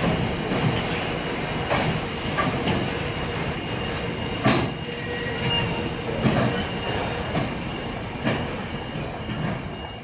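A train rolling past on the rails, its wheels clicking over rail joints every second or two above a steady rumble, with a thin, steady high squeal.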